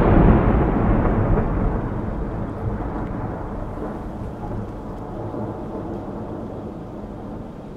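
The long echo of a large firework shell's burst, slowly dying away: its hiss fades first and a low rumble lasts longest.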